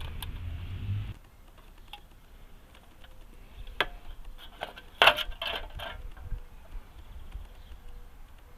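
Pellet-torn aluminium drink can being handled and set down on a plastic table: a few light metallic clicks, then a short clatter of crinkling, knocking metal about five seconds in, the loudest sound. A low rumble cuts off about a second in.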